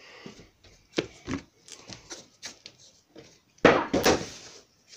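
Wooden knocks and clicks of a wardrobe door and cabinet being handled, a few sharp knocks then lighter ticks, with a longer, louder clatter about three and a half seconds in.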